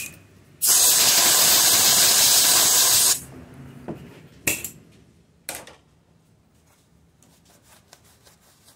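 A compressed-air blow gun blasts a steady, loud hiss for about two and a half seconds, blowing out a freshly tapped screw hole. Two short puffs follow about a second apart.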